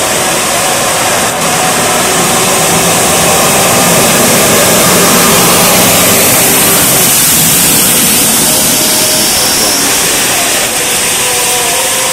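Heavy rain and floodwater hissing steadily, with a bus driving through the flooded road: its engine and the spray of water swell about midway and fade after.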